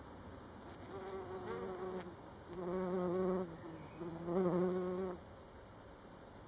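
Bumblebee buzzing in flight close by, in bouts that start about a second in and stop a little after five seconds, the low buzz wavering slightly in pitch.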